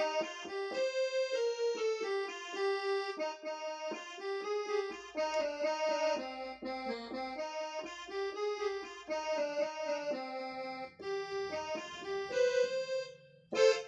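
Yamaha PSR-I455 portable keyboard playing a melody of quick, held notes. A lower accompanying line comes in during the last few seconds, and there is a loud, sharp accent just before the end.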